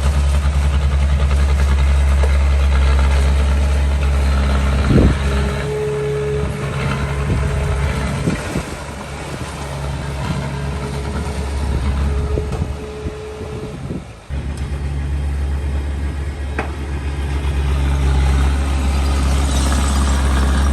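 Small bulldozer's diesel engine running steadily with a deep hum, easing off through the middle and dipping sharply for a moment about two thirds of the way through before picking up again. A thin steady whine comes and goes in the middle.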